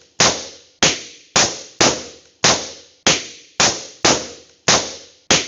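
Balloons popping one after another, about ten sharp pops at roughly half-second intervals, each followed by a short echoing tail that dies away before the next.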